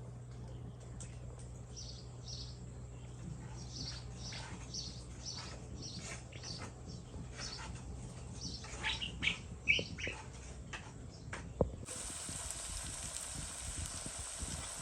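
Small birds chirping over and over in short notes, above a steady low hum. About twelve seconds in the sound switches abruptly to an even hiss.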